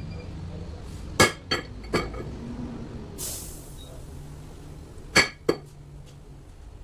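Sharp metallic clinks of metal parts or tools being knocked together on a workbench: three in quick succession, then two more near the end. A short hiss comes in between, over a steady low hum.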